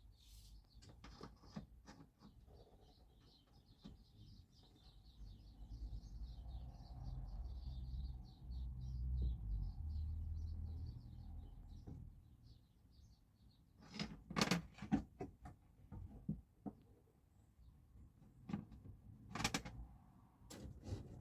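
Faint bird twittering for the first half, under a low rumble that swells and fades; later a few sharp knocks and clatters in two clusters, the loudest sounds.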